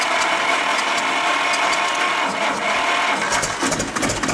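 Ursus C-325's two-cylinder diesel engine turning over on its starter with a steady mechanical whirr and regular clicks, then catching about three seconds in and starting to run with heavier, quicker knocks.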